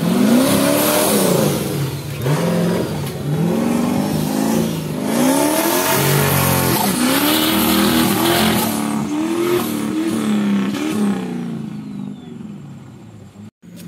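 Modified off-road 4x4 buggy's engine revved hard again and again, its pitch rising and falling as it drives through deep mud. The sound fades near the end as the vehicle pulls away.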